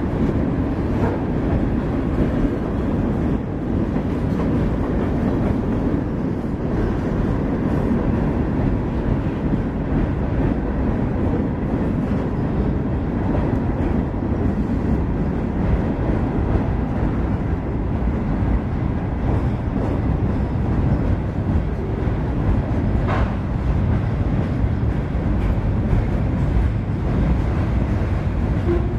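Freight cars of a CSX freight train rolling across a steel truss bridge: a steady rumble of steel wheels on rail with a continuous clatter of wheel clicks.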